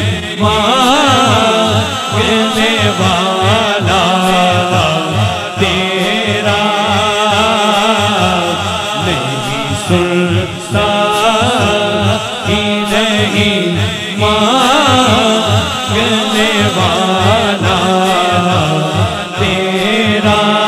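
Wordless vocal interlude of a naat: layered voices chanting and humming, with a sung melody gliding up and down over a steady low pulsing beat.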